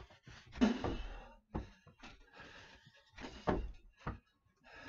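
Toilet rolls thrown one after another, landing with several separate dull thuds, the loudest about half a second in and again about three and a half seconds in.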